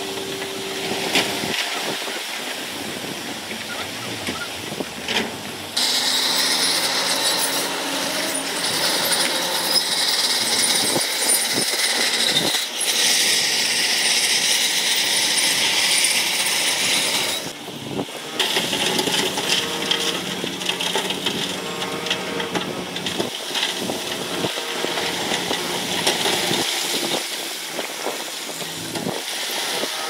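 Heavy construction machinery at work: continuous, loud engine and mechanical clatter that changes suddenly in level and tone several times.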